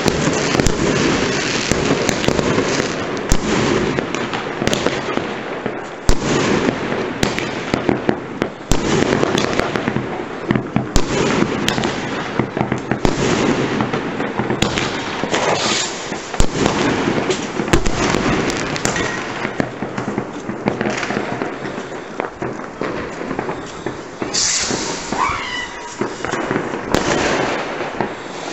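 Many fireworks going off at once: a dense, continuous barrage of bangs, pops and crackle, with a brief whistle about three-quarters of the way through.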